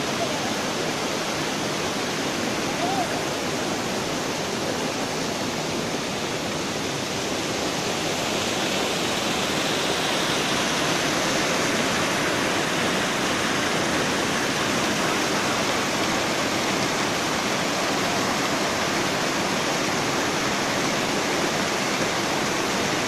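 Steady rush of water from a rocky mountain stream and a small cascade, with water running down a hollowed-log wooden flume. The noise grows a little louder and brighter about eight seconds in.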